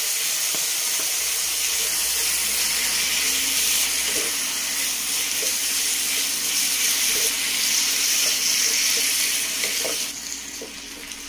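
Chicken strips and sliced onion sizzling steadily in a hot frying pan as they are stirred with a wooden spatula, with a few soft knocks of the spatula. The sizzle drops noticeably about ten seconds in.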